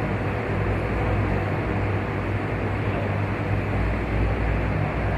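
Steady, even room rumble with a low hum and hiss: the ambient noise of a large hall.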